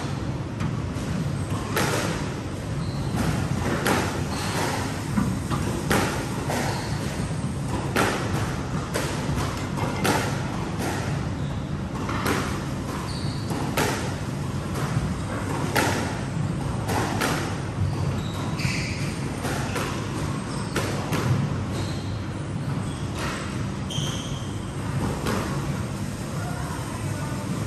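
Squash ball being struck by a racket and hitting the court walls and floor: a string of sharp, echoing smacks, about one or two a second, over a steady low hum.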